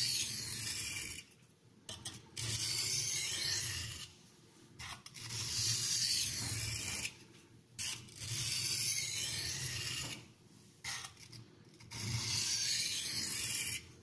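Carbon-steel knife blade drawn across an oiled India sharpening stone in long, even strokes, about five scrapes each lasting a second or two with short pauses between.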